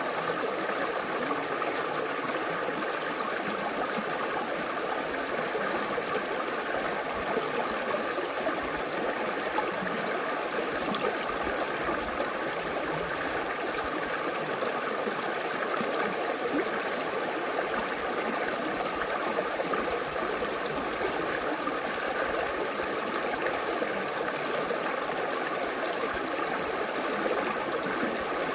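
Creek water flowing and splashing, a steady rushing and burbling.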